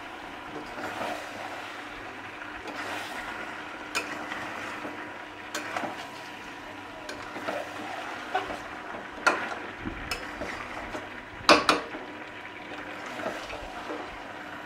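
A spatula stirring and turning mutton and potatoes in a metal kadai, over a steady sizzle of the meat frying in its released oil. Scraping comes with occasional knocks of the spatula against the pan; the loudest knocks fall a little after eleven seconds in.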